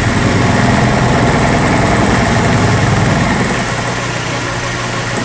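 Vertical milling machine running a 3/4-inch insert end mill across 3/4-inch key stock, cutting a slot 1/8 inch deep: a steady, rough cutting noise over the spindle's hum, dropping a little about three and a half seconds in.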